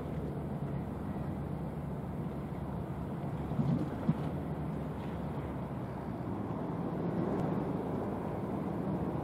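Steady low engine rumble mixed with a noisy hiss. It swells briefly about four seconds in and is cut by one short knock.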